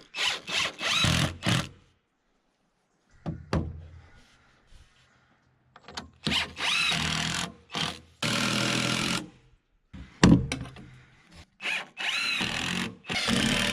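Power drill driving stainless steel screws into a handrail: repeated short runs of the motor, each about a second or less, with a brief whine as it spins up. A sharp knock comes about ten seconds in.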